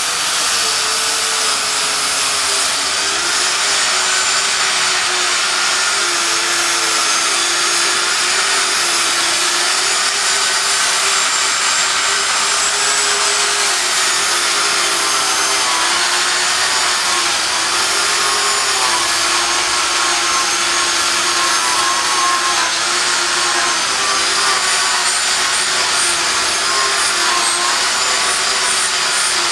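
Power sanding machine running steadily under load, its motor whine wavering slightly in pitch over a dense grinding hiss.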